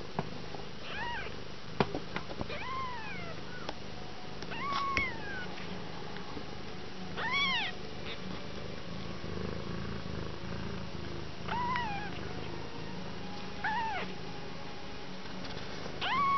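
A week-old kitten mewing, about seven thin high-pitched mews a couple of seconds apart, each rising then falling in pitch. A single sharp click about two seconds in.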